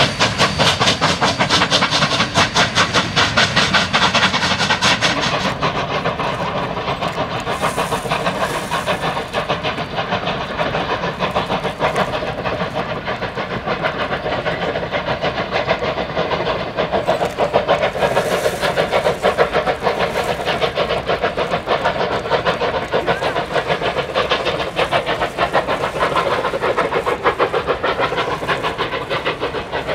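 Steam locomotive working hard under a heavy exhaust plume, its exhaust chuffing in a fast, even rhythm with steam hissing. The sharp high hiss drops away about five seconds in, leaving the duller chuffing.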